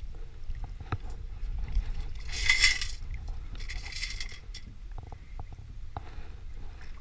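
Stones and gravel rattling in a perforated stainless-steel sand scoop as it is shaken to sift the catch, in two short bursts about a second apart, with small clinks of stones against the steel.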